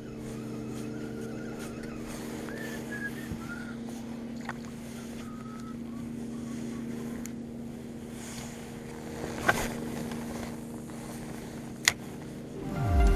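Boat's outboard motor running at a steady pace while the boat is under way. Two sharp knocks sound near the end.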